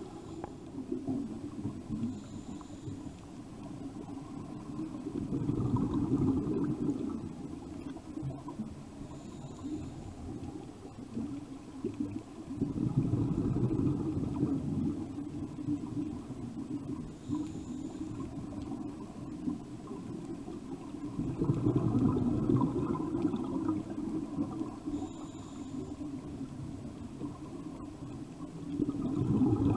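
Scuba diver breathing through a regulator underwater: a short faint hiss on each inhale, then a longer low rush of exhaled bubbles, four breaths about seven to eight seconds apart.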